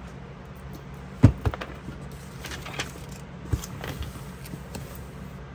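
Hands pressing a tightly bound paperback planner open flat on a tabletop: a few soft knocks and taps, the loudest about a second in and two more near the middle, with light paper handling sounds.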